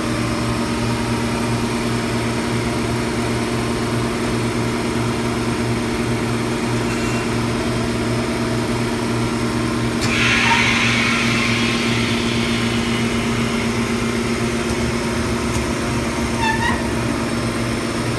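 Industrial machine running with a steady hum. About ten seconds in, a burst of hissing air starts suddenly and fades away over a couple of seconds.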